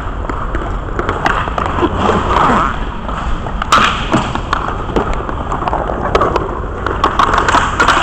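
Scattered sharp clacks and thuds of inline hockey play, sticks and puck striking and hitting the boards, over a steady low rink rumble, with indistinct voices.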